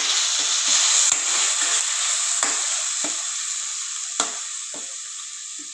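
Onion paste and cumin seeds sizzling as they fry in hot oil in a kadai, stirred with a wooden spatula that scrapes and knocks against the pan a few times, most sharply about four seconds in. The sizzle slowly dies down.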